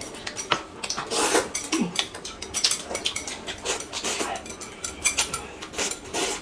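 Eating sounds: noodles slurped up several times, with chopsticks clicking and scraping against a plate.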